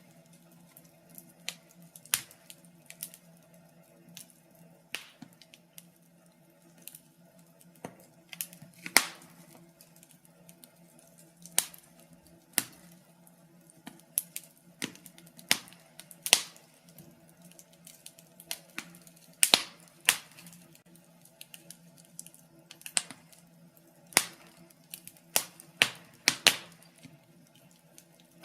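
Wood fire burning in a fireplace, crackling with irregular sharp pops and snaps, some much louder than others, over a faint steady low hum.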